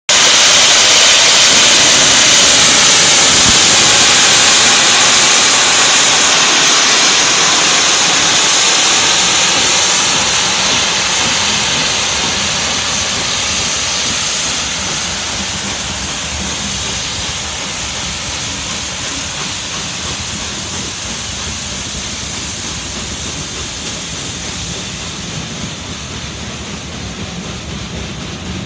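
LNER Peppercorn A1 Pacific steam locomotive 60163 Tornado hauling its train past, with loud steam hissing as the engine goes by. The sound then fades steadily as the locomotive and coaches draw away.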